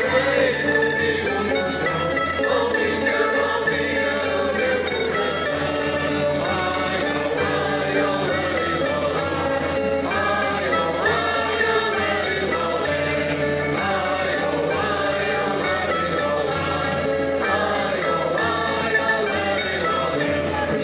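Portuguese folk song group singing in chorus, men's and women's voices together, to strummed guitars, with a jingling percussion part, amplified over the stage speakers.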